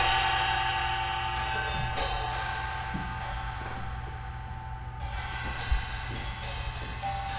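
Improvised percussion: a struck cymbal rings and slowly fades, then light, quick strokes on cymbals and drums start up about five seconds in.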